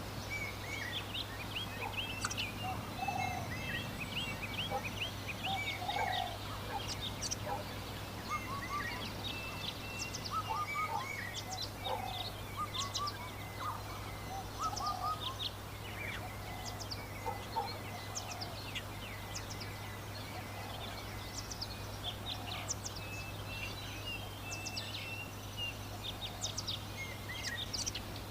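Countryside birdsong: many short high chirps and twitters overlapping throughout, with a lower call repeating every two or three seconds, over a steady low hum.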